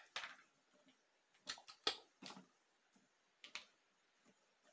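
A handful of faint, short clicks and taps of small plastic toy dishes being handled, with quiet gaps between them.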